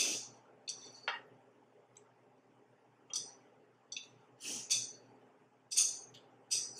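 Chopsticks scraping and tapping against a nonstick frying pan as noodles are gathered up: a string of about nine short, sharp clicks and scrapes at irregular intervals.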